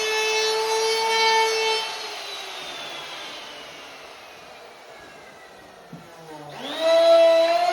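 Electric wood router running with a high steady whine, then switched off and winding down in a long falling pitch; about six and a half seconds in it is switched on again and spins back up to speed.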